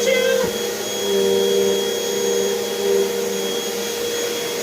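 Vacuum cleaner running steadily, its motor giving a constant hum with a high whine over the rush of air.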